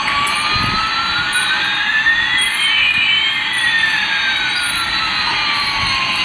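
Electronic jet-engine sound effect: a steady hiss with one whine rising and another falling, crossing in the middle.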